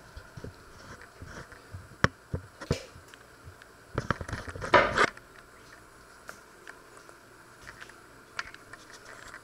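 Handling noise: scattered light knocks and clicks, with a short rustling burst about four to five seconds in as the camera is picked up and moved.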